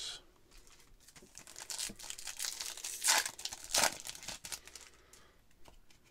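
Trading card pack wrapper from a 2023 Stadium Club pack being torn open and crinkled. The crackling rises about a second in, peaks twice around three to four seconds in, then fades.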